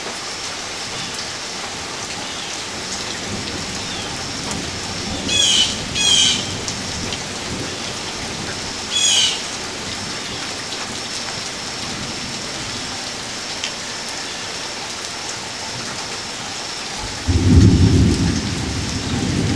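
Steady rain falling in a thunderstorm, with three short, high falling chirps, twice about five seconds in and once about nine seconds in. Near the end a loud, low thunder rumble breaks in suddenly and keeps rolling.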